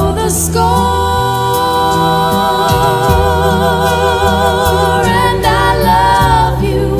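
A woman singing a slow ballad: she holds one long note with vibrato for several seconds, then sings a shorter note, over soft low instrumental chords.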